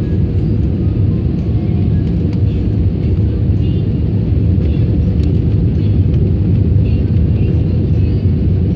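Steady loud rumble of an airliner's cabin noise heard from a window seat by the wing: the engines and the rush of air during the descent to land, with the flaps extended.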